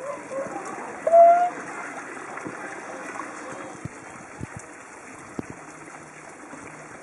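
Swans calling: a few short calls, then one loud call about a second in that lasts about half a second, with fainter calls after it. A steady noise of running water lies underneath.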